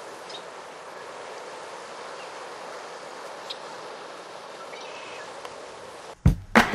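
Steady rushing of water flowing down an irrigation ditch and through its gate, with a few faint short chirps. Music with a strong beat cuts in near the end.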